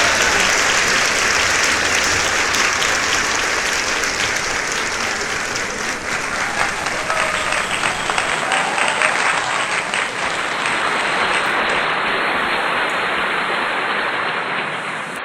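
Audience applauding, many hands clapping steadily, cutting off abruptly at the end.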